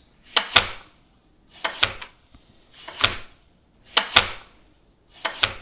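Chef's knife slicing through a blood orange and then a lemon, each stroke ending in a knock of the blade on a wooden cutting board: five strokes, roughly one every second and a bit.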